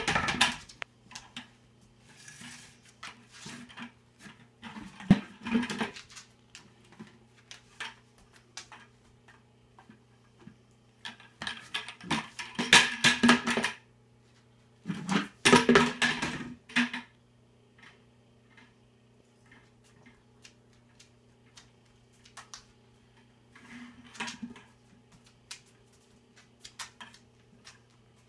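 A dog knocking and pushing a bucket around on the floor: bursts of clattering and scraping lasting a second or two, with quieter gaps between, the loudest a little before and after the middle. A steady low hum runs underneath.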